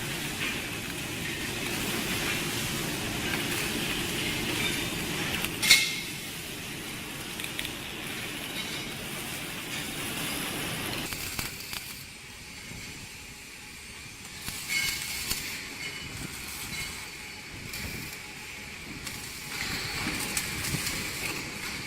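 MIG welding arc of a robotic welder crackling and hissing, with a sharp click about six seconds in. From about twelve seconds on it turns quieter and thinner.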